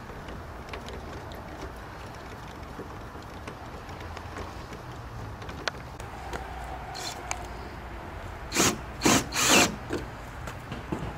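Power screwdriver driving screws in three short bursts near the end, after scattered small clicks and knocks of parts and screws being handled.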